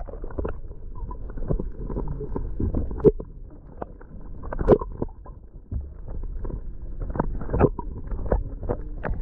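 Muffled underwater sound heard through a submerged action camera's housing: a dull wash of water with scattered sharp clicks and knocks.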